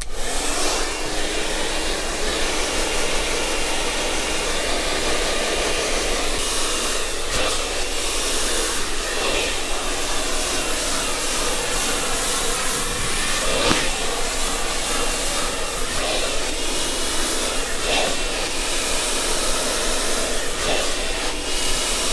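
Handheld hair dryer running steadily, blowing hot air on long hair that is pulled straight with a round brush.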